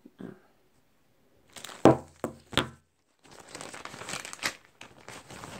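A plastic zip-top bag holding a damp paper towel being worked open with one hand: the plastic crinkles, with a few sharp snaps about two seconds in, then a longer stretch of crackling rustle.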